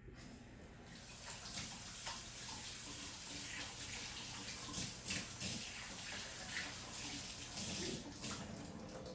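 Tap running into a sink while hands are washed under it, the water splashing over the hands in small surges. The flow starts just after the beginning and stops near the end.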